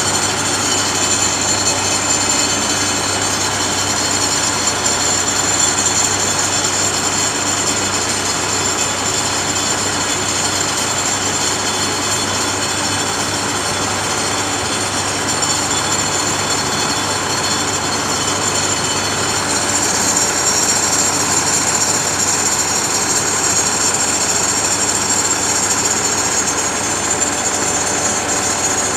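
Concrete pump's engine running at a steady speed, with a high steady whine over it that grows a little stronger about two-thirds of the way through.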